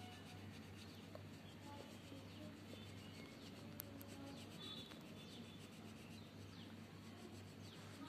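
Faint rubbing and scratching of a pen on paper as a drawn wheel is filled in, over a steady low hum.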